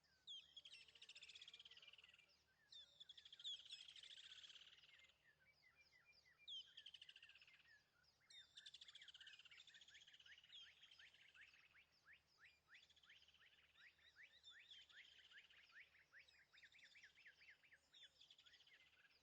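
Faint bird chirping: rapid series of short, high chirps, each falling in pitch, coming in bursts of a few seconds one after another.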